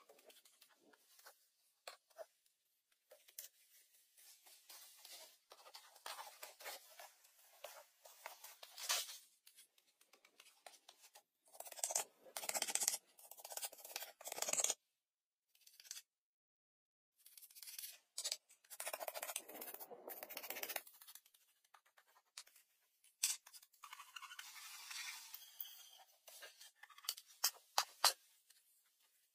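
Rustling, scraping and crunching of outdoor hand work with wood and undergrowth, in short uneven bursts, with a few sharp clicks near the end and a moment of dead silence in the middle where clips are joined.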